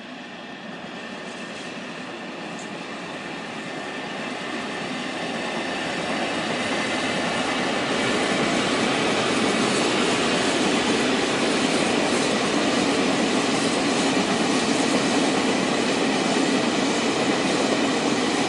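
Freight train of flat wagons rolling past on a railway bridge: the noise of wheels on the rails grows louder over the first eight seconds or so as the wagons come close, then holds steady and loud.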